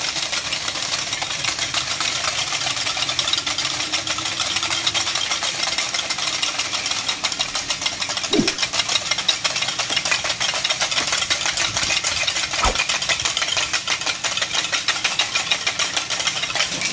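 A small engine running steadily, with a fast, even pulsing.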